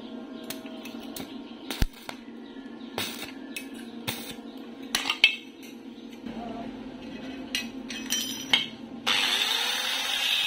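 Scattered metallic clinks and knocks as steel pieces and tools are handled, over a steady low hum. About nine seconds in, an electric angle grinder fitted with a cutting disc starts and runs steadily, much louder.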